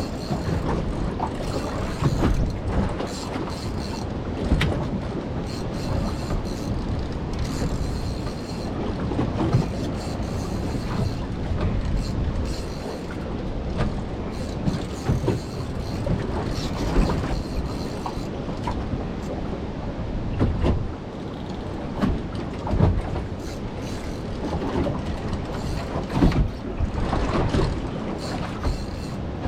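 Steady rumbling noise with frequent irregular knocks and thuds, from a small fishing boat rocking and working in big waves.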